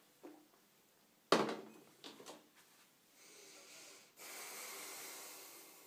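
Close-up breathing and mouth sounds of a person drinking and swallowing, with a sudden sharp sound a little over a second in and a few smaller mouth noises after it. A long, noisy breath out fills the second half.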